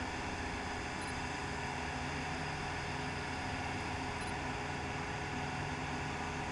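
Steady mechanical hum of running machinery: an even noise with several constant tones, unchanging throughout.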